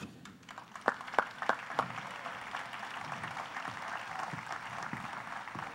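Audience applauding: a few separate claps about a second in, then steady clapping from the crowd.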